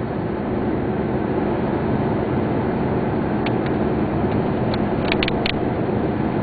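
Steady road and engine noise inside a car driving at highway speed. A few short sharp ticks come in the second half.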